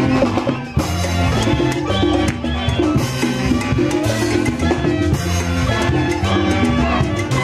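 Live instrumental music from a Mantaro Valley orquesta típica playing a huaylarsh, with bass and drums keeping a steady beat.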